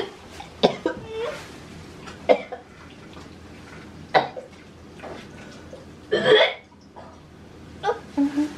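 A woman gagging and coughing in a handful of short, sharp outbursts, with a longer, stronger retch about six seconds in. It is her reaction to a spoiled-milk-flavoured jelly bean, which she spits into a napkin.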